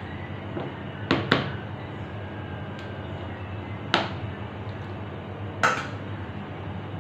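A spoon clinking against a bowl four times: a quick double knock about a second in, then single knocks near four and near six seconds, over a steady low hum.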